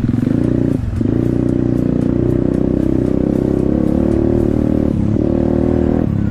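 Off-road motorcycle engine running hard under throttle, its pitch shifting as the rider works the throttle. It closes off and picks up again briefly about a second in, near five seconds, and just before the end.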